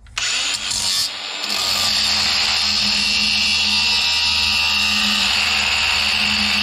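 Large angle grinder switched on just after the start and grinding steadily into a metal part clamped in a vise. The motor hum holds at a constant pitch under the loud grinding noise.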